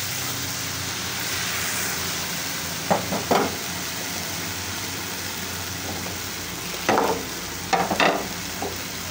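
Onion masala sizzling and bubbling in a black pan on the stove. A few short spatula scrapes against the pan come about three seconds in and again around seven to eight seconds.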